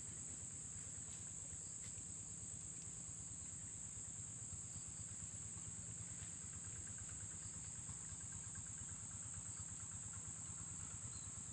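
Steady, high-pitched insect drone, one unbroken shrill note, over a low rumble.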